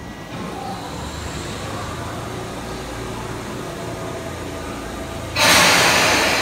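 Tobu 10030 series electric train's underfloor equipment humming steadily while the car stands. About five seconds in comes a sudden loud hiss of air that then fades slowly: the air brakes releasing before the train moves off.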